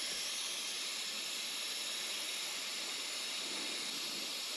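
Air hissing steadily out of an off-road caravan tyre's valve as the tyre is let down by hand, lowering the pressure for driving on soft sand.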